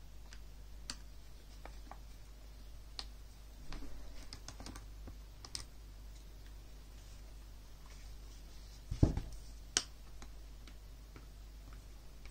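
Sparse small clicks and taps of a screwdriver and hard plastic headset parts being handled as a HyperX Cloud Alpha headband joint is unscrewed, over a steady low hum. A louder dull bump comes about nine seconds in, followed by a sharp click.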